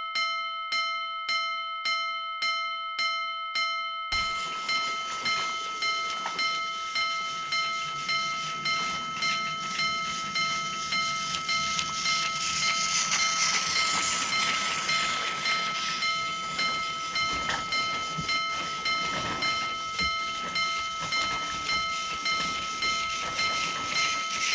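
Railroad crossing warning bell ringing in a steady, pulsing ding-ding about twice a second. From about four seconds in, the rolling noise of a passing train joins it, with the bell still sounding under it.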